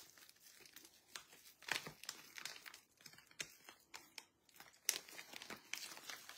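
Clear plastic bag of glitter crinkling and rustling as it is handled at its tied neck, with scattered sharp crackles, the sharpest about five seconds in.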